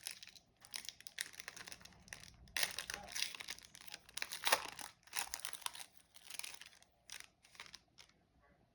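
Trading card pack wrapper being torn open and crinkled in the hands: an uneven run of crackling and ripping noises that stops near the end.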